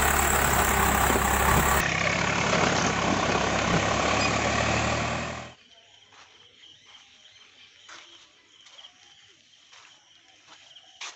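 Swaraj 742 FE tractor's diesel engine running loudly under heavy load as it pulls against a bogged, sand-loaded trolley, with its front wheels lifting off the ground. About five and a half seconds in the engine sound stops abruptly, leaving a faint background with scattered small clicks.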